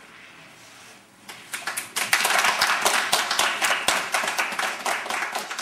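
Audience applauding: a few claps start about a second in, quickly swell into full applause, and then slowly thin out.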